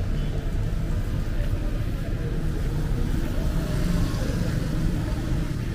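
Street traffic: a steady low rumble of motorbikes passing by.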